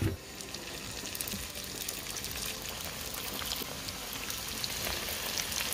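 Hot oil sizzling and crackling as spring roll pastry parcels shallow-fry in a pan, the crackle growing denser after a couple of seconds.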